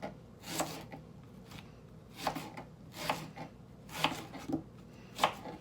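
Knife slicing through an onion and striking the cutting board, in slow, uneven cuts about once or twice a second.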